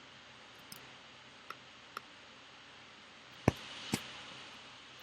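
A few scattered clicks from computer mouse and keyboard use, the loudest about three and a half seconds in.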